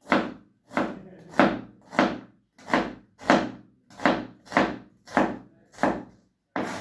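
Kitchen knife slicing vegetables on a wooden chopping board, a steady run of knocks about one every half-second or so.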